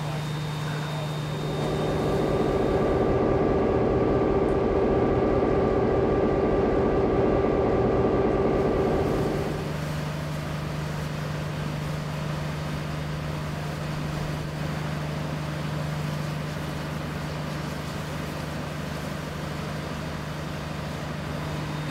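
A stationary locomotive running with a steady low hum. A louder, rougher rumble comes in about a second and a half in and stops about eight seconds later.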